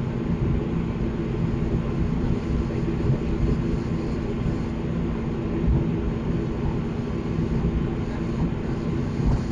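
ATR 42 turboprop engine and propeller running as the aircraft taxis after landing, heard inside the cabin: a steady drone with a constant low hum.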